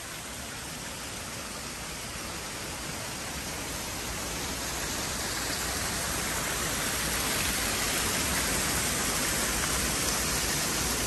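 Sulphur spring water pouring from a pipe and splashing down a stepped stone cascade into a pool: a steady rushing that grows gradually louder toward the end.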